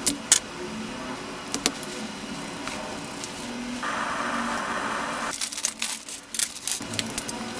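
Small plastic clicks and taps as an RC crawler axle and a small screwdriver are handled, a steady hiss for about a second and a half midway, then crinkling and crackling of a clear plastic parts bag near the end.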